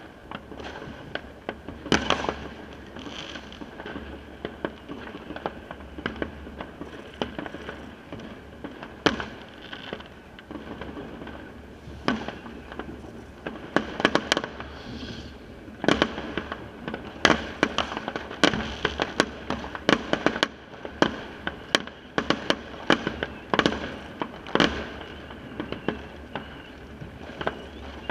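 Fireworks and firecrackers going off: many sharp bangs and cracks, scattered at first and coming thick and fast in the second half.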